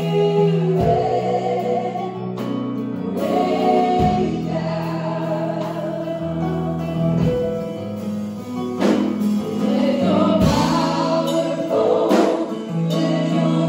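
A small mixed group of voices sings a gospel worship song in harmony through microphones, accompanied by an electronic keyboard. The notes are long and held, over a keyboard bass line that changes every second or two.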